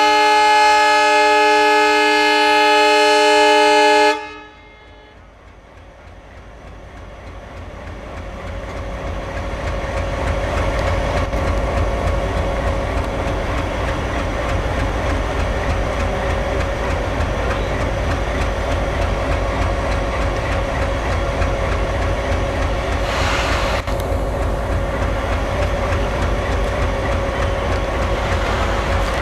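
WDM-2A diesel locomotive's air horn sounds one long chord of several tones for about four seconds and cuts off sharply. Then the locomotive's ALCO 251 V16 diesel engine chugs as it is opened up, growing louder over the next few seconds and running steadily as it accelerates a passenger train away.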